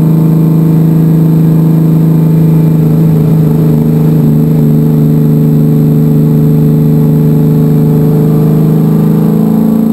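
NASCAR Cup car's V8 engine running hard at speed, heard from inside the cockpit: a loud, steady drone that dips slightly in pitch a few seconds in, then holds.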